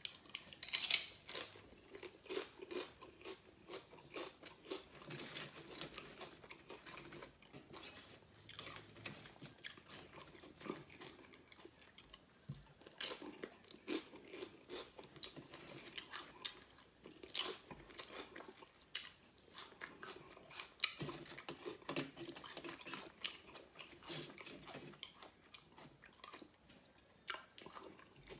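A person chewing crunchy tortilla chips: a steady run of small crackling crunches and mouth sounds, broken by a few louder, sharper bites spread through it.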